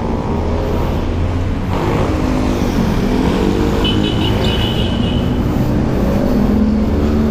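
Motorcycle engine running at low revs amid passing road traffic, a steady engine hum whose pitch drifts up and down. A brief high-pitched squeal about four seconds in.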